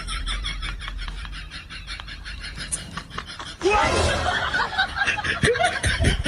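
A person laughing in quick repeated pulses, getting louder about halfway through.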